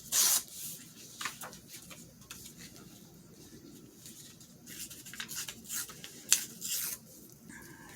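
Paper being torn and handled: short rustling, ripping bursts near the start and again about five to seven seconds in, with one sharp tap among them.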